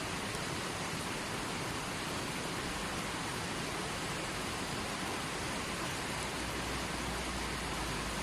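Stream water flowing steadily over rocks: a dense, even rushing with no distinct splashes.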